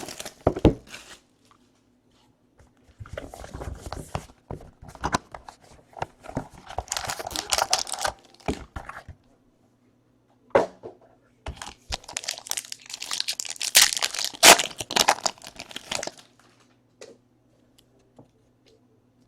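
Plastic wrapping on a sports card box being torn open and crinkled, in two spells of crackling with a sharp knock between them.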